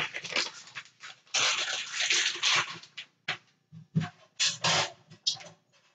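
Plastic pepperoni package rustling and crinkling as it is handled and opened, in irregular bursts with short pauses, the longest in the middle.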